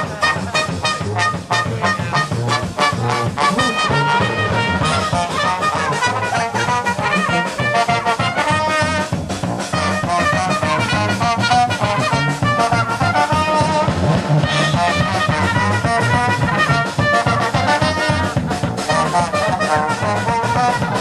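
Upbeat brass music, with trumpet and trombone playing over a steady beat.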